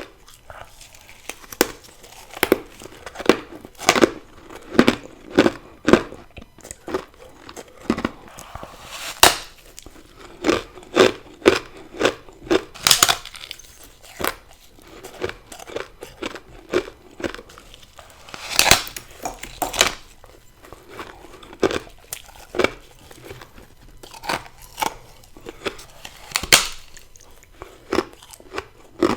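Close-miked crunching of ice or freezer frost being bitten and chewed: a long, irregular run of sharp crunches, a few much louder bites standing out among the smaller chewing crackles.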